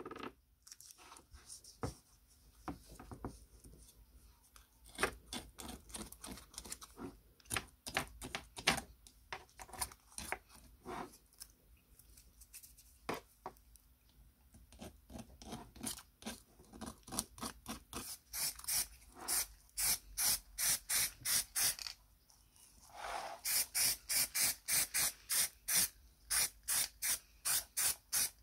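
Masking tape being pressed onto a hole punch's cast-metal base and trimmed with a small knife: irregular crackles and clicks, then quick, regular scratching strokes, about five a second, through the second half with a short pause.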